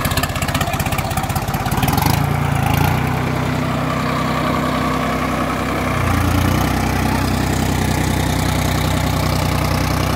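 Sonalika DI 50 tractor's diesel engine running under load through a recently fitted aftermarket silencer, driving a rotavator in low first gear with men standing on the implement. The engine note shifts about two seconds in and again about six seconds in.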